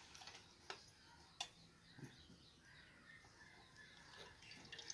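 Near silence with a few faint sharp clicks and faint bird chirps in the background.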